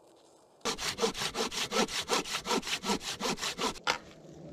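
Hand saw cutting through a log in a quick, even run of back-and-forth strokes, starting under a second in and stopping abruptly near the end.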